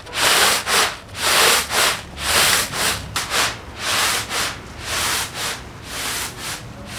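Dry tiwul (cassava) granules swishing and sliding across a round woven bamboo tray as it is shaken and swirled, in a steady rhythm of about one swish a second.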